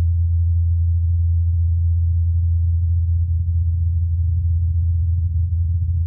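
Ingenuity Mars helicopter's rotor blades humming, a steady low tone near 84 Hz, recorded on Mars by Perseverance rover's SuperCam microphone about 80 m away. The recording is filtered down to the narrow band around the blade tone and turned up, so only the low hum remains.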